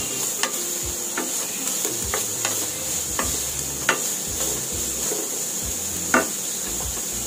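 Chopped shallots, garlic, curry leaves and green chilli sizzling steadily in hot oil in a nonstick kadai while being stirred with a wooden spatula, with a few short taps and scrapes of the spatula against the pan.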